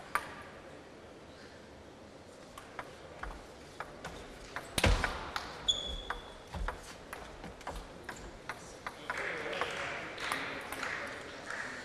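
Table tennis rally: a celluloid ball clicking off the bats and the table, with one loud hit about five seconds in and a short squeak just after it. A spell of crowd noise follows near the end.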